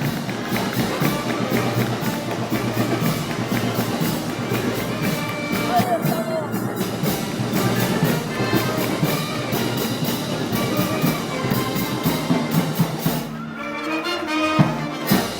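Brass band playing Moros y Cristianos festival music, with trumpets, trombones and percussion over a steady beat. The sound thins briefly about thirteen seconds in.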